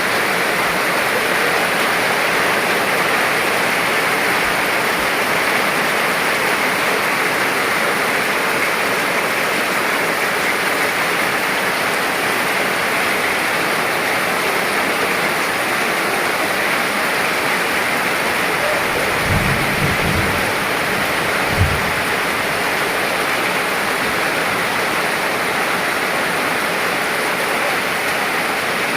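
Steady, even rainfall hissing without a break. About two-thirds of the way through there is a brief low rumble, then a single sharp low thump.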